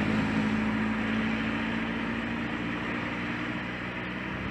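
A road vehicle passing on the highway: a steady engine hum with tyre noise that slowly fades as it moves away.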